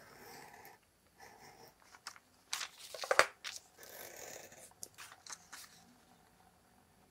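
Snap-off craft knife slicing through tracing paper along a steel ruler on a cutting mat: a series of short scraping cuts, the loudest about three seconds in. Then the paper rustles and there are a few light clicks near the end.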